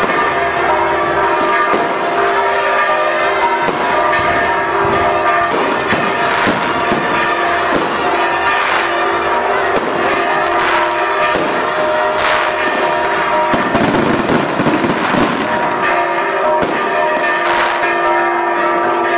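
Church bells pealing continuously from the bell tower, with firework bangs and crackles going off every second or two over them, thickest about three quarters of the way through.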